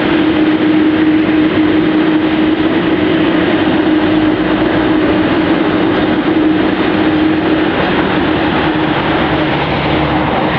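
McDonnell Douglas MD-11 jet engines running loud and steady on takeoff: a broad roar with a steady droning tone, and a deep rumble building about halfway through.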